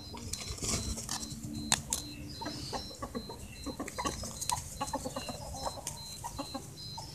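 Domestic chickens clucking, mixed with scattered sharp clicks and taps and a faint, evenly pulsing high tone.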